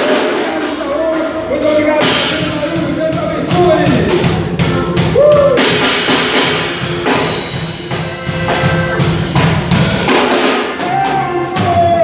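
A band playing a rock-style song with a drum kit, with a sung melody over it.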